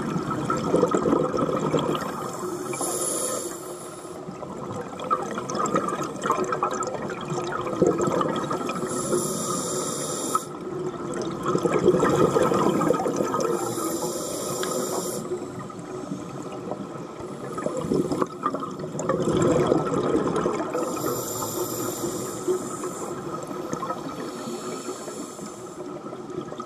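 Scuba regulator breathing heard underwater: a hissing inhale four times, a few seconds apart, each followed by a long rush of exhaled bubbles.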